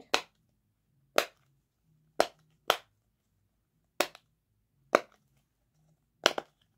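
Silicone bubbles of a flower-shaped pop-it fidget toy being pressed on its loud side, giving about eight sharp pops spaced irregularly, roughly a second apart, with two close together near the end.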